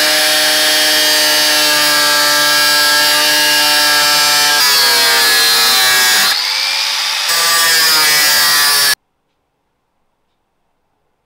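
INGCO angle grinder with a thin cutting disc slicing through a car door's sheet-metal outer skin: a loud, steady high whine with grinding noise. In the second half the pitch sags and wavers as the disc is pressed into the cut, and about nine seconds in the sound stops abruptly.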